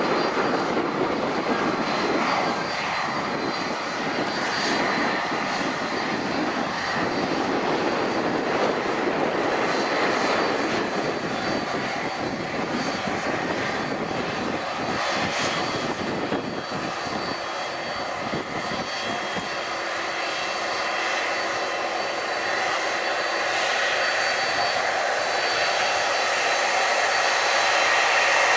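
Boeing 767-300ER airliner's jet engines running, a steady rushing noise with a faint high whine, growing somewhat louder near the end.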